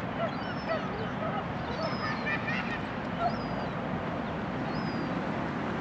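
Steady rush of wind and surf noise, with many faint short high calls scattered through it and a brief cluster of them about two seconds in.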